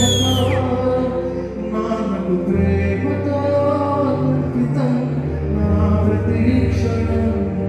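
Live amplified music: a male singer sings a melody into a handheld microphone over a backing band with a steady bass line. A high whistle-like tone slides down at the very start.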